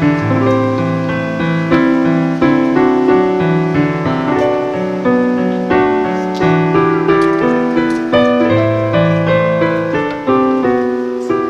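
Background piano music: a melody of struck notes over low bass notes.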